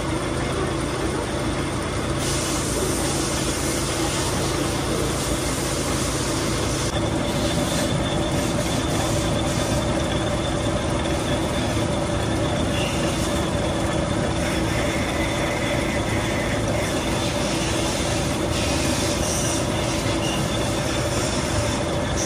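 Workshop machinery running steadily, a continuous mechanical noise with a constant whine on top.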